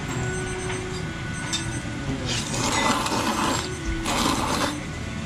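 A person slurping thick Sanuki udon noodles: two slurps a couple of seconds in, the first longer than the second.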